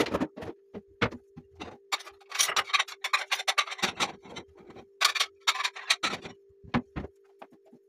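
Kitchen clatter: dishes and utensils knocking and clinking in a rapid series of short taps, with two denser bursts of rattling, over a steady faint hum.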